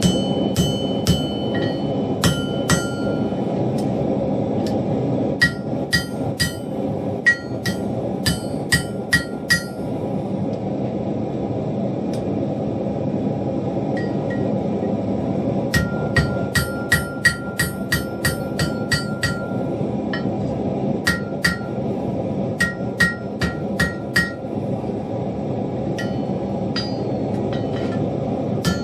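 Blacksmith's hand hammer striking hot steel on an anvil in runs of quick blows, about three a second at the fastest, with pauses between runs. Each blow leaves a short metallic ring from the anvil, which is not yet properly remounted. A steady rushing noise runs underneath.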